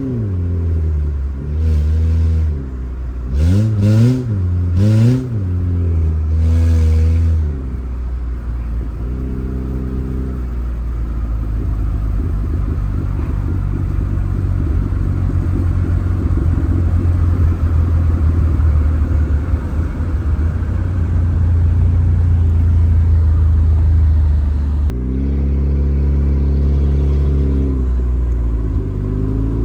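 Car engine revved several times, its pitch rising and falling, then running at a steady low idle rumble with a couple of longer held revs.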